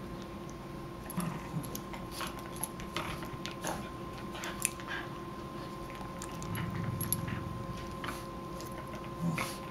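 Two small dogs, a West Highland white terrier and a small brown terrier, play-fighting on a sofa: mouthing and nipping at each other, with scattered small clicks and scuffling on the cushions and a few soft low grumbles.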